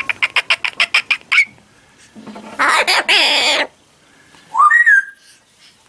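A macaw calling: a quick run of about ten short, evenly spaced notes over the first second and a half, then a loud harsh squawk lasting about a second and a half, then a short rising whistled call near the end.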